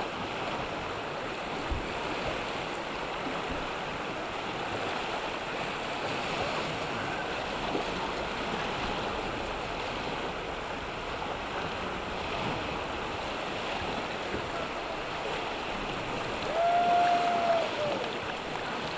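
River rapids rushing steadily, whitewater churning. Near the end a short held tone, about a second long, rises over the water.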